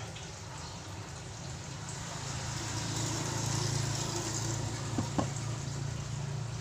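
Steady low hum under a rushing noise that swells and fades in the middle, with two light clicks in quick succession about five seconds in as the brake booster is handled.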